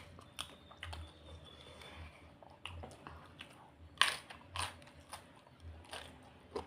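Close-up chewing of raw jengkol beans: a steady chewing rhythm with irregular crunches, the loudest two about four seconds in.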